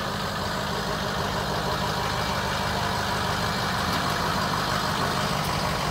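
2006 Ford F-550's 6.0-litre V8 turbo diesel idling steadily.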